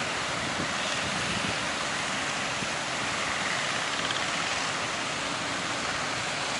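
Breaking sea surf: a steady, even rush of waves.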